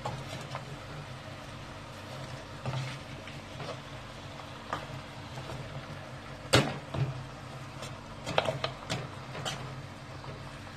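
Wooden spoon stirring cow's trotters, chopped onion and spices in a stainless steel pot, giving scattered knocks and scrapes against the pot, the loudest about two-thirds of the way through, over a low steady background.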